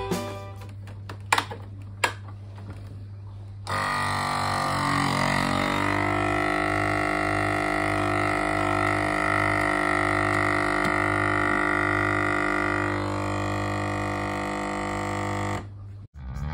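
Countertop vacuum sealer's pump running with a steady drone as it draws the air out of a bag of meat, starting about four seconds in and stopping shortly before the end. Before it starts, a few light clicks as the bag and lid are handled.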